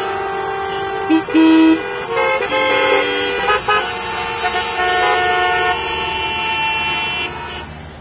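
Many vehicle horns honking at once in traffic stopped at a red signal: long overlapping blasts at different pitches, the loudest about a second and a half in. The honking dies away near the end.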